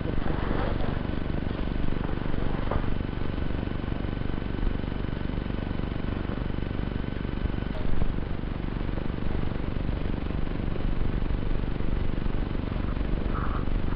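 Steady low rumble of wind on the microphone on open ice, with a faint thin electronic whine that stops about eight seconds in.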